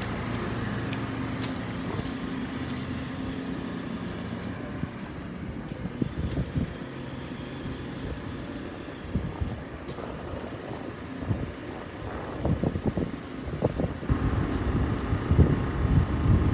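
JCB telehandler's diesel engine running steadily as the boom lifts a loaded pallet. Over the second half, irregular low rumbles come and go.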